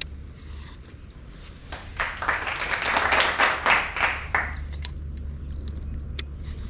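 A short burst of hand clapping from a few people, rising and fading over about two and a half seconds, over a steady low hum.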